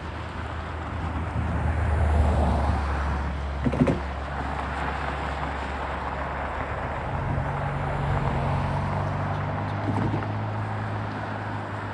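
Intermodal stack train rolling past: a steady rumble of wheels on rail under a low hum, with a sharp clank about four seconds in and another near ten seconds.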